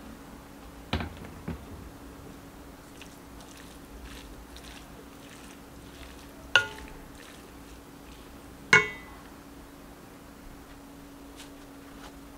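Kitchenware clinking as dumpling filling is stirred in a stainless steel pot with a wooden spatula. There are two sharp clinks, each with a brief metallic ring, about two seconds apart, and earlier two duller knocks about a second in, all over a steady low hum.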